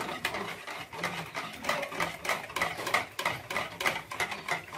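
Wire whisk stirring cornstarch into water in a plastic bowl, making a quick, even run of light clicks, several a second, as it knocks against the bowl.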